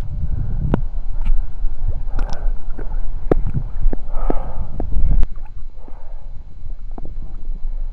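Small waves lapping and sloshing against a camera held at the water's surface, with wind buffeting the microphone as a low rumble. Sharp clicks of water striking the microphone run through it, with splashy gurgles about two and four seconds in; the rumble eases after about five seconds.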